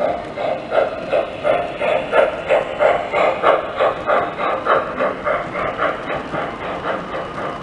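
An O scale model steam locomotive's electronic sound system gives a steady chuff, about three puffs a second, over the rolling rumble of the cars on the track. The chuffs fade near the end as the locomotive moves off.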